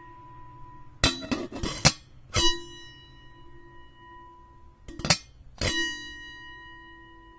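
Metal kettle lid rattling with a quick cluster of clicks, then clanging and ringing on with a steady metallic hum that slowly fades; this happens twice.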